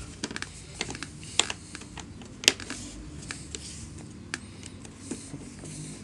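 Irregular plastic clicks and taps as hands press the rear grille cover onto a Fantom İkoncan bagless vacuum cleaner's plastic body, the cover not snapping fully into place. The sharpest click comes about two and a half seconds in.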